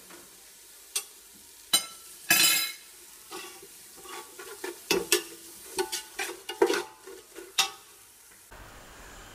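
Perforated metal spatula scraping and clicking against a large metal pot while stirring sliced onions frying in ghee, with a light sizzle underneath. The strokes come irregularly, with a longer, louder scrape about two and a half seconds in.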